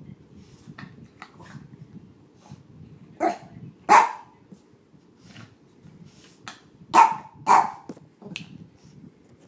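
Chihuahua barking: five short, sharp barks, two about three and four seconds in, then three close together near the end, the last one weaker.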